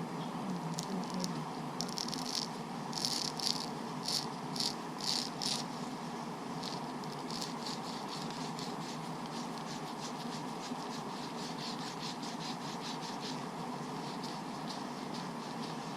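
Small hard clicks and rattles of parts being handled, a cluster of sharper clicks early on followed by a long run of rapid fine ticks, over a steady hum.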